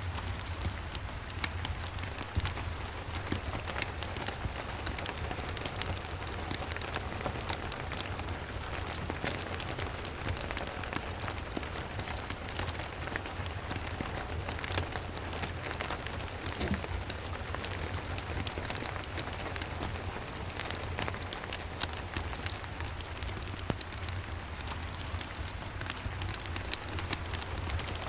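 Steady rain pattering, with many small sharp ticks of drops, mixed with a crackling wood fire over a steady low rumble.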